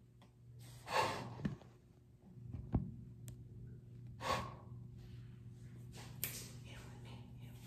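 Phone being handled and set down, making a few faint clicks and knocks, with two short breathy rushes about a second in and past four seconds in, over a steady low hum.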